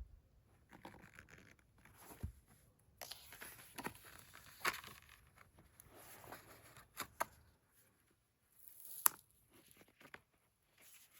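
Paper and packaging being handled: rustling and tearing with scattered light taps and clicks, and one sharper click about nine seconds in.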